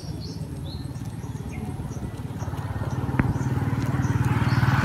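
Small motorcycle engine running with a fast even pulse, getting steadily louder as it approaches. A single sharp click about three seconds in.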